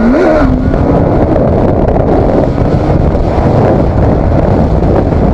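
Motorcycle riding at over 100 mph, heavy wind rushing over the bike-mounted microphone and mostly burying the engine. The engine note climbs and dips briefly at the start.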